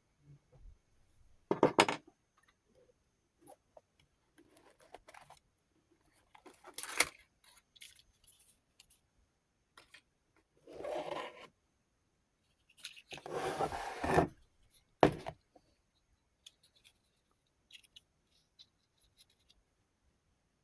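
A rotary tool accessory set being handled: a few sharp clicks, with two short stretches of scraping and rustling about halfway through and small pieces faintly clinking between.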